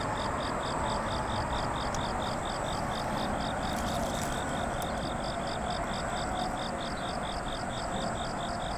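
Insects chirping in an even, rapid rhythm, about four to five pulses a second, over a steady outdoor hiss.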